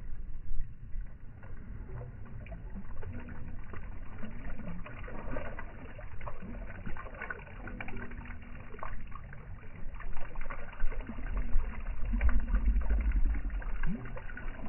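Water splashing and dripping as a stringer loaded with bluegills is hauled up out of the shallows, with scattered small clicks and a low rumble that swells near the end.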